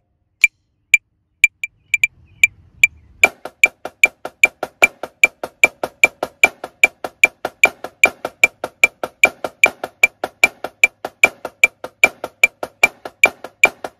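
Metronome clicking alone at a steady 150 BPM for about three seconds, then a marching snare drum comes in with fast, even stick strokes over the clicks, playing an accent-tap exercise: accented strokes among quieter taps.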